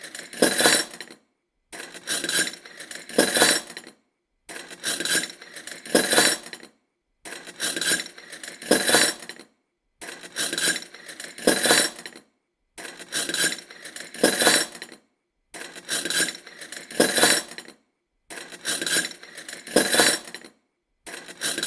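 Spoon and fork clinking and scraping, in bursts of several sharp clinks that repeat almost identically about every three seconds, with a brief silence between bursts.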